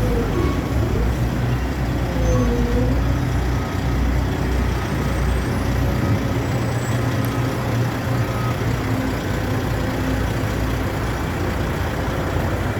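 Busy street traffic: a steady low rumble of heavy vehicles such as buses and trucks running.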